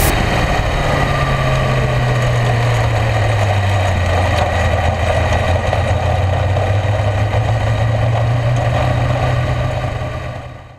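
A World of Outlaws sprint car's 410 V8 running at steady, even revs, heard from a camera mounted on the car. It fades out near the end.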